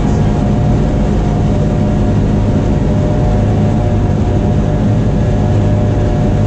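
Sightseeing boat's engine running steadily: a constant low drone with a fainter steady higher tone over it.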